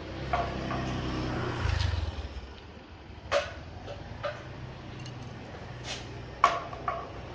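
A motor vehicle's engine rumbles low, loudest in the first two seconds, then fades back. About five sharp clicks or taps come in the second half, the loudest near the end.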